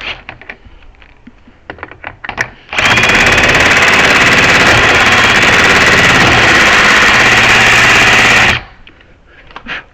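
A handheld power grinder starts about three seconds in and runs steadily under load for about six seconds, grinding a piece of door hardware down a little, then stops abruptly. Light clicks and knocks of the part being handled come before it.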